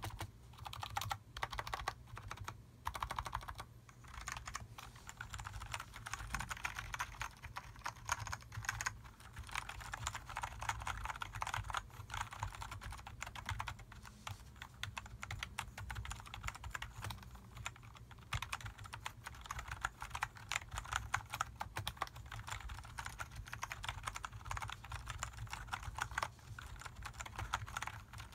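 Skydigital NKEYBOARD NKEY-P2 LED gaming keyboard being typed on with both hands: a dense clatter of key clicks, in short bursts for the first few seconds, then steady fast typing.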